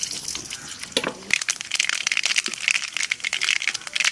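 Mustard seeds frying in hot coconut oil in an aluminium kadai, sizzling and crackling with quick, dense pops that thicken from about a second in: the seeds spluttering as the tempering begins.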